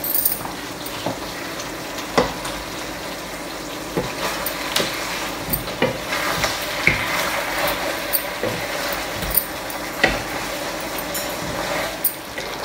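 Potato and aubergine curry sizzling in a non-stick wok on a gas burner, stirred with a wooden spatula that knocks and scrapes against the pan every second or two.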